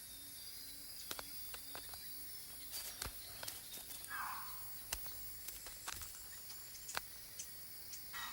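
Mountain forest ambience: a faint steady high insect drone with scattered sharp clicks and ticks. A faint low call repeats about three times a second for the first three seconds, and there is a short rustle about four seconds in.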